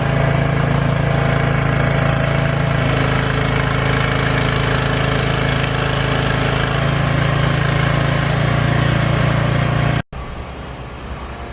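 A large engine running steadily at constant speed with a deep hum. About ten seconds in it cuts out for an instant and comes back much quieter.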